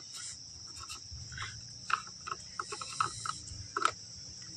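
A few light plastic clicks and taps as a yellow screw-on filler cap on a car engine is turned and lifted off. Under them runs a steady high-pitched insect chirring.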